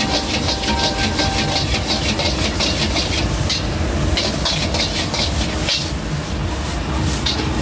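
Metal spatula scraping and tossing rice in a wok at about three strokes a second, with a hiss over a steady low rumble.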